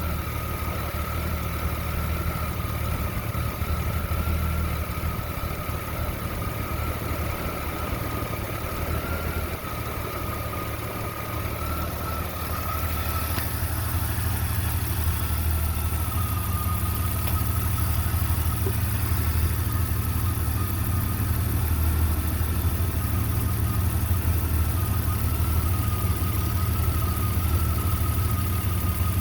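Jeep Comanche's 4.7-litre stroker inline-six idling steadily, an idle the owner calls rough, with a thin steady whine running above the engine note.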